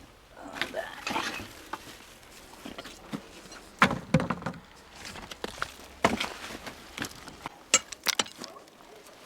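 Scattered knocks and scrapes of hands and tools rummaging inside an old brick stove full of ash and frozen debris, with sharper knocks about four, six and eight seconds in.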